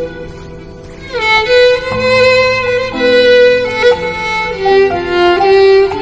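Background music: a violin playing a melody over held lower notes, sliding up into a new note about a second in.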